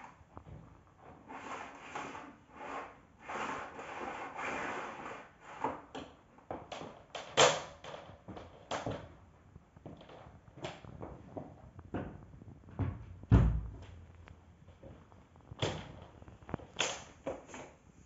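Irregular clicks, knocks and rustles from handling a Bosch BGS21X320 bagless canister vacuum cleaner, its tube, hose and power cord, with a heavy low thump about thirteen seconds in. The vacuum's motor is not running.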